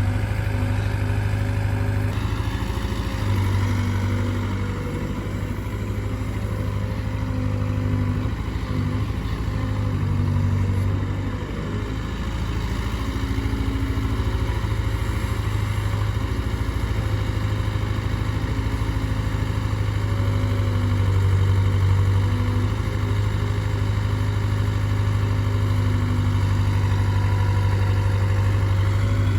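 Heavy diesel engine running steadily under work, its level dipping a little now and then.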